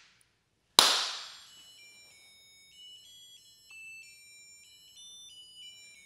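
A single hand clap about a second in, its echo dying away, then the Snap Circuits music IC playing its doorbell tune through the piezo whistle chip: a faint, thin, high electronic melody of short stepped notes. The clap sets off the sound-activated doorbell chime.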